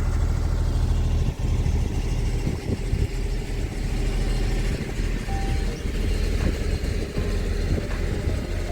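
Car engine and road noise heard from inside a moving car: a steady low rumble.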